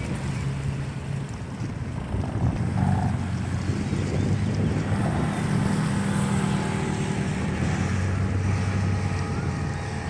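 Wind buffeting the microphone, with a steady low engine drone that sets in about three seconds in and holds.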